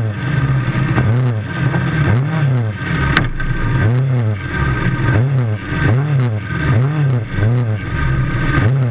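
Micro sprint race car's engine being blipped while the car sits still, its note rising and falling in quick, even throttle blips about every half second.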